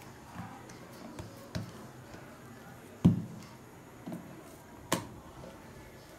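About half a dozen scattered soft knocks and taps of dough being pressed out and a wooden rolling pin on a wooden rolling board, the loudest about three seconds in.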